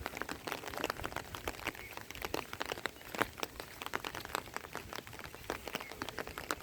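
Rain falling, with many small, irregular drop ticks close by over a steady hiss.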